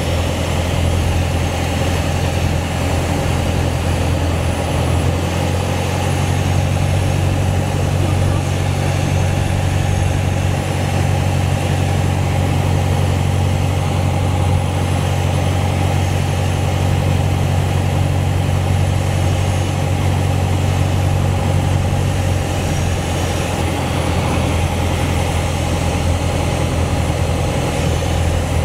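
Single-engine Piper PA-28 Cherokee's piston engine and propeller droning steadily, heard inside the cabin with a steady rush of air, while the aircraft is on final approach. The note eases slightly about three-quarters of the way through.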